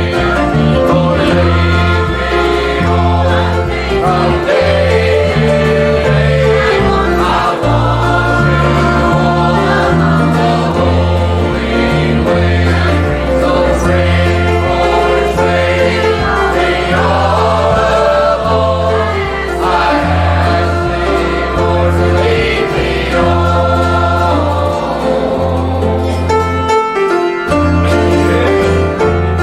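Choir singing a gospel song with instrumental accompaniment over a steady bass line.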